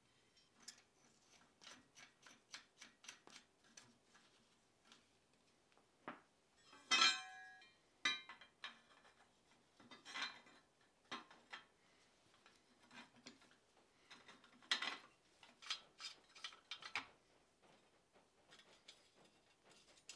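Steel parts of a wine rack clinking and tapping as the threaded bars are fitted into the steel end plates and square nuts are put on, with one louder ringing clank about seven seconds in.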